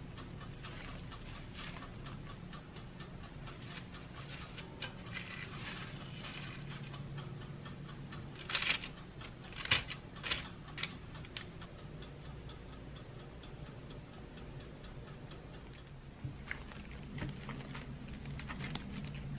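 Light taps and rustling as hands and a plastic scraper handle sticks of dough on plastic wrap and a parchment-lined baking tray, with a few louder crinkles of paper and plastic about nine to ten seconds in. A low steady hum runs underneath.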